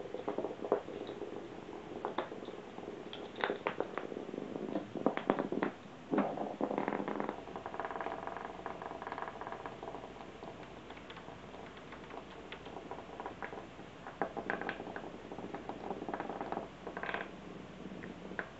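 HEXBUG nano vibration-motor toy bug buzzing and rattling across a hardwood floor, with irregular clicks and taps as a cat paws at it and pins it down.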